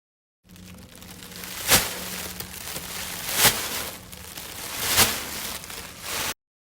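Continuous crackling, crinkling noise punctuated by three sharp impacts about a second and a half apart, the loudest moments; it starts and cuts off abruptly.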